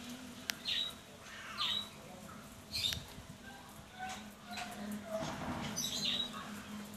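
An animal giving short, high-pitched squeaky cries, about four of them a second or more apart, each sliding down in pitch, over a steady low hum.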